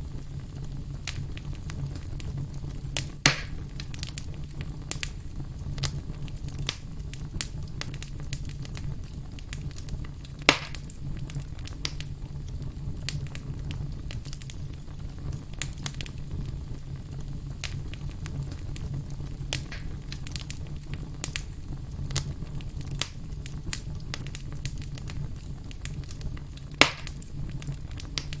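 Firewood burning, with a steady low rumble and frequent small crackles. Three louder pops stand out: about three seconds in, about ten seconds in, and near the end.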